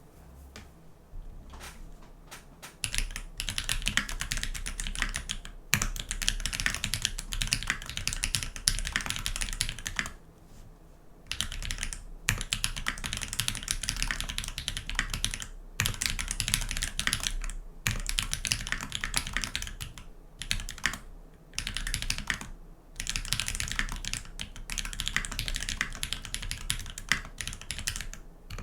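Typing on a TX65 V2 custom mechanical keyboard with lubed Holypanda tactile switches, a brass plate and GMK keycaps. A few scattered keystrokes at first, then fast keystrokes in runs of a few seconds broken by short pauses.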